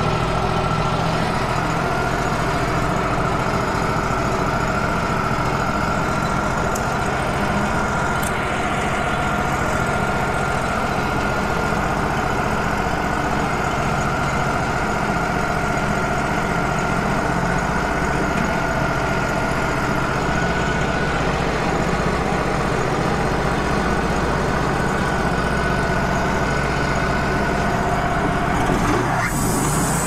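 Wood-Mizer LT35 hydraulic portable bandsaw mill running steadily, its engine droning under a steady high whine from the band, as the sawhead cuts the crooked hump off a cherry log. The sound changes just before the end.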